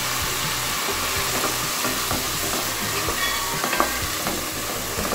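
Diced chicken sizzling in hot oil over high heat, stirred with a wooden spatula that scrapes and knocks against the pan, with a few sharper knocks between about three and four seconds in.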